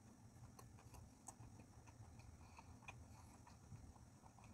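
Near silence with faint, scattered soft clicks of a mouthful of sushi being chewed.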